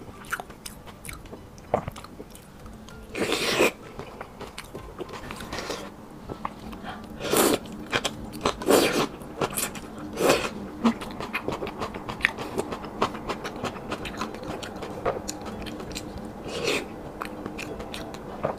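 Close-miked eating of soft, slippery pork brain and noodles in chili oil: steady chewing with many small wet mouth clicks and several short louder slurps spread through.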